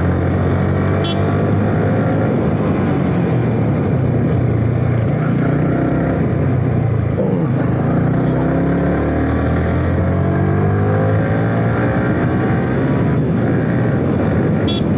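Motorcycle ride at road speed heard through a lavalier mic inside a closed full-face helmet: steady wind rush with the engine's drone beneath, its pitch drifting slightly up and down.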